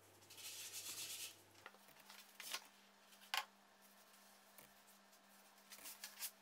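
Rustling of the covered proofing basket being handled, then a few short, soft knocks and brief rustles as a proofed sourdough loaf is turned out of the basket onto a paper-lined peel.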